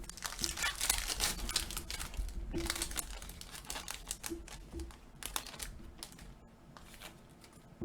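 A foil trading-card pack being torn open and its wrapper crinkled, with cards clicking and sliding as they are handled. The crinkling is densest in the first few seconds and gives way to scattered clicks.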